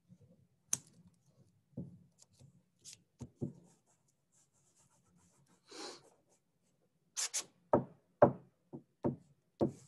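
Hands working a paper craft on a tabletop, spreading glue over paper with light scratching and rubbing. A short rustle comes about six seconds in, followed by a run of several knocks against the table in the last few seconds.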